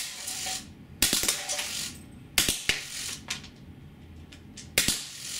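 Drozd Blackbird BB machine gun on remote-line HPA firing about four short bursts, the steel BBs clattering and clinking against metal drink cans and the backstop.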